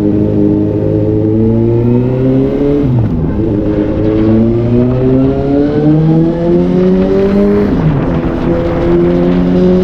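Suzuki GSR750's inline-four engine pulling hard under acceleration, its pitch climbing steadily, with a quick upshift about three seconds in and another near eight seconds, the revs dropping sharply each time before climbing again.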